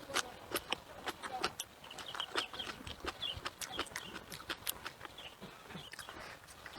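Close-up eating sounds: crisp crunching bites and chewing, a quick irregular series of sharp clicks and smacks.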